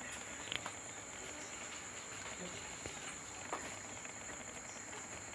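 Crickets chirring in a steady, high, unbroken drone, with a few faint clicks.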